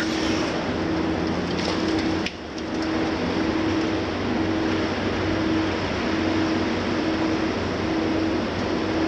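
Liebherr 954 long-front demolition excavator at work: its six-cylinder diesel runs under load with a steady rushing noise, over which a low tone pulses on and off a little faster than once a second. The level dips briefly a little after two seconds in.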